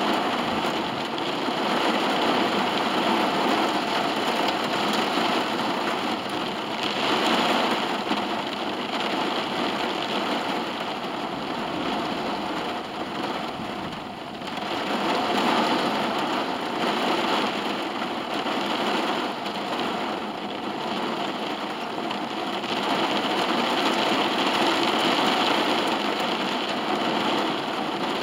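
Heavy rain falling on a car's roof and windows, heard from inside the cabin: a steady hiss that swells and eases, dropping briefly about halfway through.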